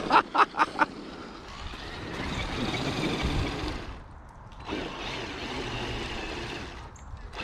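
Traxxas X-Maxx electric RC truck on 8S power running in snow, a quick run of knocks at the start, then its motor whine and churning tyres swelling twice as it drives past.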